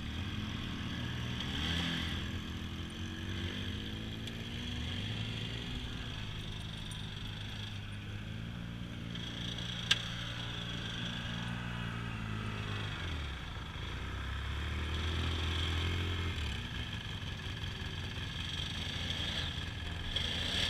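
ATV engine running and revving, its pitch rising and falling several times. A single sharp click comes about halfway through.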